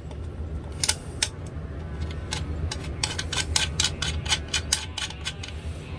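A run of small, sharp clicks and taps, a few a second and thickest in the middle, as a screwdriver works at a small magnet seated in a hole in a solid-body electric guitar's top. A steady low hum runs underneath.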